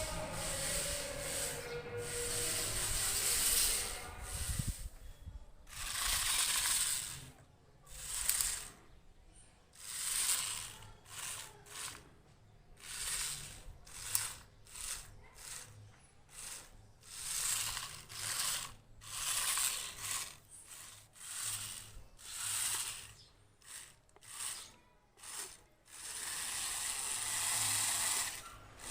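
Small brushed electric motors and gearbox of a homemade RC car whirring in short bursts, about one a second, as the throttle is pulsed on and off. The runs are longer at the start and again near the end.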